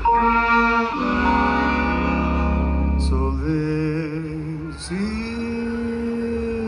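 Live swing band playing a slow ballad: long held notes in chords, one of them wavering with vibrato about four seconds in.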